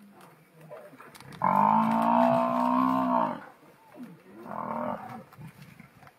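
African buffalo bellowing in distress while under attack by lions: one long, loud bellow of about two seconds, then a shorter, weaker one about a second later.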